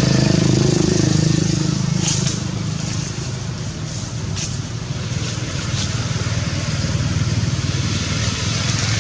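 Motor vehicle engine running steadily, loudest in the first two seconds, easing off, then growing louder again in the second half.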